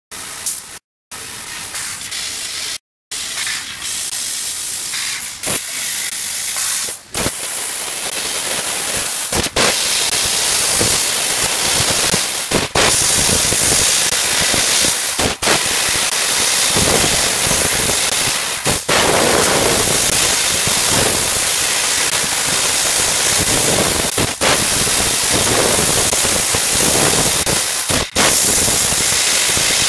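Fiber laser cutting machine cutting copper sheet: a steady, loud hiss of assist gas blowing from the cutting-head nozzle, broken by a brief dip every few seconds. It is quieter at first, with two short silent gaps in the first three seconds.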